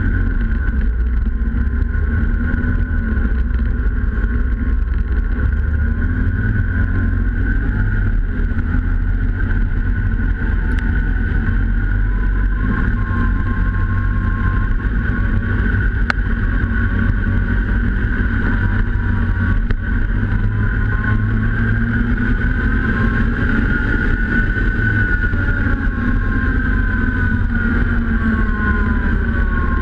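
Snowmobile engine running steadily at cruising speed, heard from a camera mounted on the sled's bodywork: a constant whine over a heavy low rumble. The pitch climbs slightly a bit after the middle and then eases back down.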